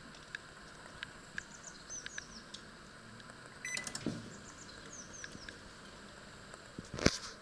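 Panasonic microwave/combination oven being set: its rotary control dial clicks as it is turned, the oven gives a short beep about three and a half seconds in as it starts, and a sharp loud click comes near the end.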